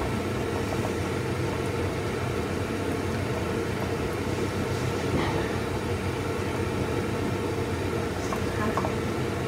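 A steady low rumble in the kitchen while a wok of curry cooks, with a few faint scrapes and taps of a spatula stirring it.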